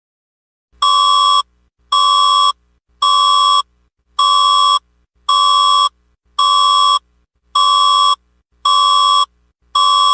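Electronic alert tone beeping in an even series, nine beeps each about two-thirds of a second long and a little over a second apart, the first about a second in. They are the closing tones of an emergency alert system test.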